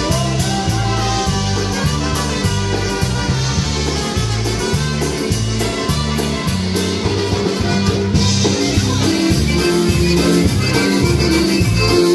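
Live polka band playing an instrumental passage: trumpets, concertina and piano accordion over an electric bass stepping between low notes, with drums keeping an even beat.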